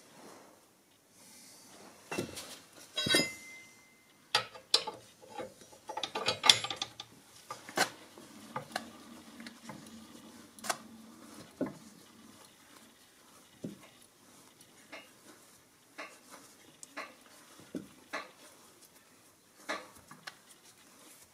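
Metal clinks and clanks from a steel crank rod being hooked into the eye of a car scissor jack, one of them ringing briefly. Then the jack is wound up by hand, giving a series of lighter clicks and knocks about once a second as the screw turns and the car is lifted.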